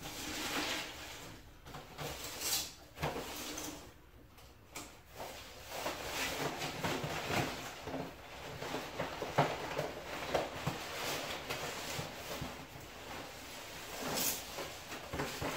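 Packing material rustling and crinkling as it is pulled from a long cardboard shipping box and pushed into a plastic trash can, with the cardboard box scraping and knocking. The rustling is irregular, with a few sharper knocks.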